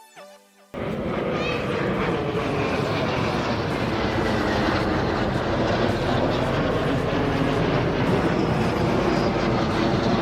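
Military aircraft engine noise cutting in suddenly under a second in and holding steady and loud, as an aircraft comes in to land.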